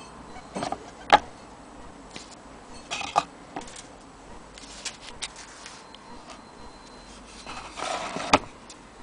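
Hands handling an antique Willcox & Gibbs hand-crank sewing machine: a few sharp clicks and knocks against its cast-iron frame and wooden base, the loudest about a second in and near the end, with brief rustling between.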